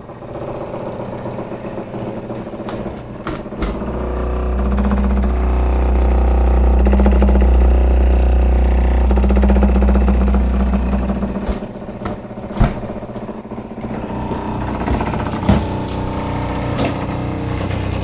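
GE GNE25JMKCFES French-door refrigerator making an abnormal, engine-like mechanical humming and droning noise. A deep rumble swells in about four seconds in and falls away about eleven seconds in, with a few sharp clicks and knocks along the way.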